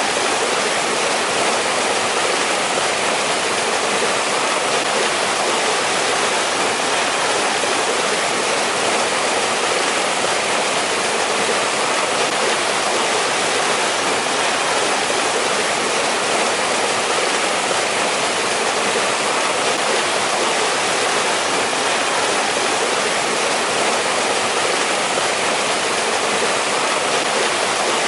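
Mountain stream water rushing and splashing over rocks in a steady, unbroken flow.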